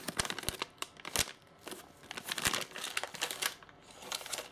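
Small plastic parts bags being handled, crinkling and rustling with irregular small crackles and clicks.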